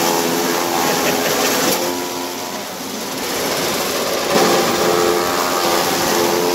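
Electric chaff cutter driven by a three-phase motor, running and chopping napier grass: a steady mechanical hum with the whir of the cutting blades. It dips briefly a little past two seconds, and a sharp knock comes about four seconds in.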